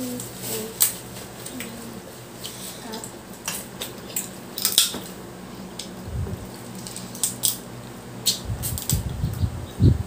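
Eating a seafood boil: scattered sharp clicks and cracks of seafood shells and utensils handled against a plate, with a few dull thumps near the end.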